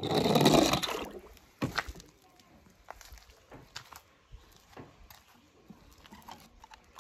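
Plastic toy cars being handled on a ramp of popsicle sticks: a rattling burst about a second long as a toy monster truck is pushed over the sticks, then faint clicks and taps as the toys are picked up and set down.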